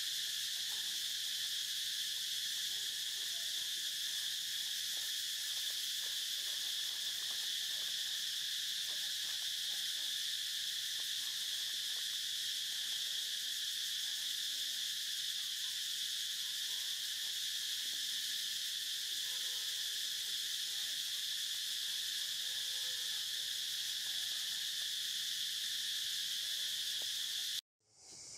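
A steady chorus of insects, an even high-pitched droning hum in several layered pitches, running without pause until it cuts off abruptly near the end.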